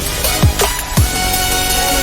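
Electronic dance music with deep bass kick drums that drop sharply in pitch, hitting several times.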